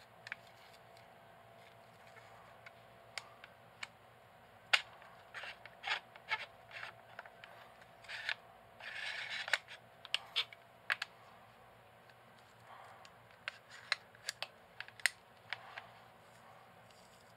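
Camera extension tubes being handled and twisted apart by hand: a series of sharp clicks and knocks from the tube mounts, with a short rasping scrape about halfway through.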